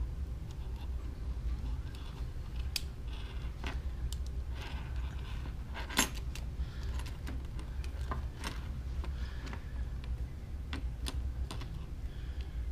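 Keys on a key ring jangling, with scattered small plastic clicks as the key-ring attachment is worked onto a Viper car alarm remote's case. The sharpest click comes about six seconds in.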